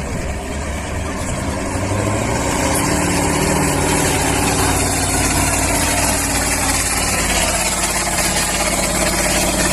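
Heavy off-road trial truck's diesel engine running under load as it tries to climb a steep hill. The engine note builds over the first couple of seconds, then holds steady and loud.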